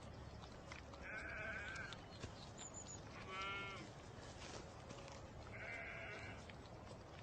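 Young goat kid bleating three times, high-pitched, the middle bleat quavering.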